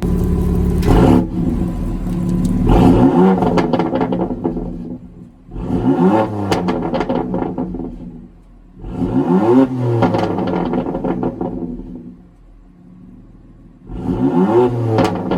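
BMW engine breathing through an M Performance exhaust, free-revved about five times, roughly every three seconds. Each rev climbs and falls back with crackles and pops on the overrun.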